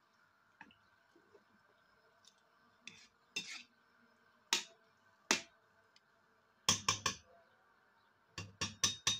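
Metal slotted spoon knocking and scraping against a cooking pot while stirring a wet spinach and lamb curry: scattered sharp clicks, then a quick run of knocks near the end.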